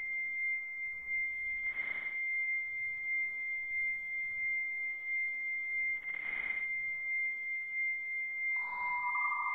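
Dial-up modem handshake slowed to a tenth of its speed: the answering modem's steady high answer tone, broken by a short hissy blip about every four seconds. A lower steady tone joins it near the end.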